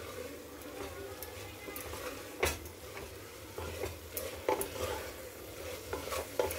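Wooden spatula stirring vegetables and spiced masala in a pressure cooker, the mixture sizzling as it is sautéed, with the spatula knocking against the cooker now and then; the sharpest knock comes about two and a half seconds in.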